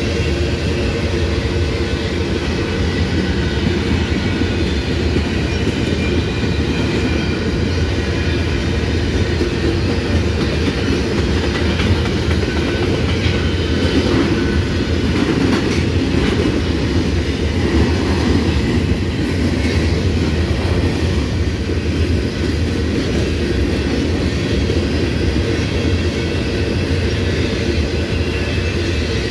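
Empty covered hopper cars of a freight grain train rolling steadily past on the rails, the sound sitting mostly low.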